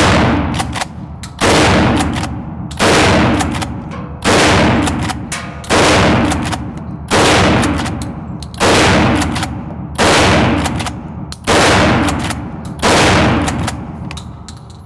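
Mossberg 590M 12-gauge pump-action shotgun firing ten rounds of double-aught buckshot, one shot about every second and a half, with the pump cycled between shots. Each blast rings on in the echo of an indoor range.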